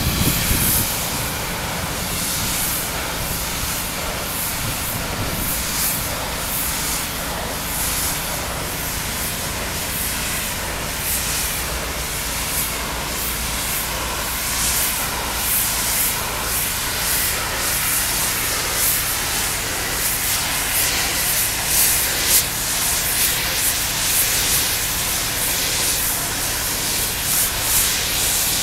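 Pressure washer spraying: a steady hiss of high-pressure water that swells and fades every second or so, over a low steady hum.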